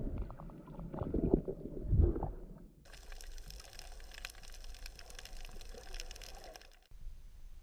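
Water heard through an underwater camera's microphone: muffled sloshing and bubbling with low thumps at first, then, after an abrupt change about three seconds in, a fainter, even crackling hiss.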